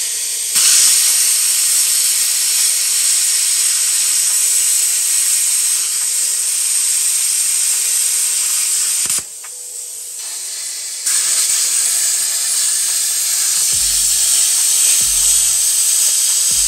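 Plasma cutter cutting rusted sheet steel: a loud, steady hiss of the arc and air jet. It stops about nine seconds in and starts again about two seconds later.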